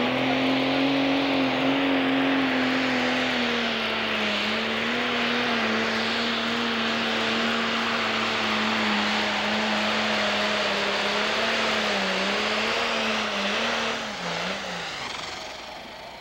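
Pro stock pulling tractor's turbocharged diesel engine at full throttle under heavy load, dragging the weight sled with a loud, steady engine note that sags slightly as the pull goes on. About fourteen seconds in, the throttle comes off and the engine winds down at the end of the pull.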